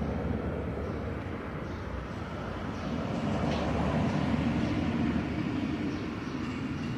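Steady low outdoor rumble that swells a little around the middle.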